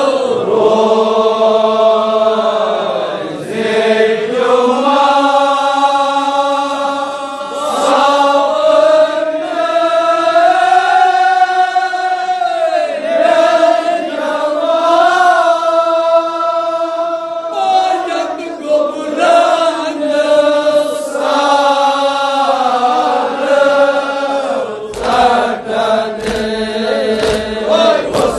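Kashmiri marsiya: men chanting a mourning lament together in long, wavering held notes. Near the end, sharp knocks join the chanting.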